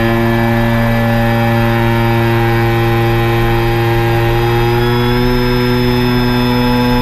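Drone motors and propellers humming steadily, the pitch drifting slightly up and down as the drone holds and adjusts its flight.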